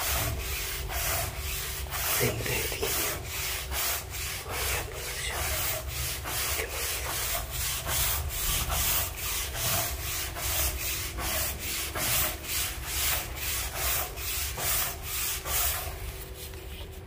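Stiff deck brush scrubbing back and forth over wet wooden deck boards to scrub off mould and moss, in even rasping strokes about two or three a second. The strokes stop shortly before the end.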